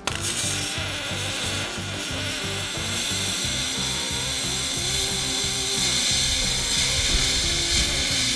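MIG welding arc on aluminum framing: a steady hiss that starts suddenly and runs unbroken, with background music underneath.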